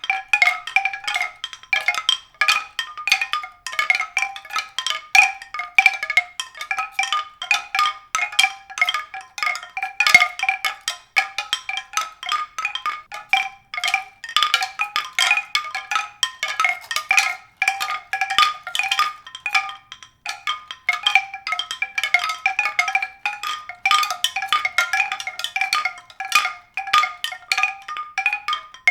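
Tuned percussion struck rapidly and irregularly, several strikes a second, each ringing briefly at the same few fixed pitches.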